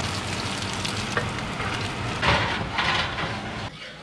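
Crumb-coated fish fillets sizzling in oil in a frying pan, with a spatula scraping the pan as they are lifted and turned, louder twice past the middle. The sizzle drops away near the end.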